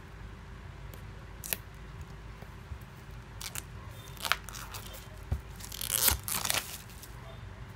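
Clear plastic shrink wrap on a small cardboard box being snipped with scissors and peeled off: scattered crinkles and crackles, with the loudest run of crackling about six seconds in.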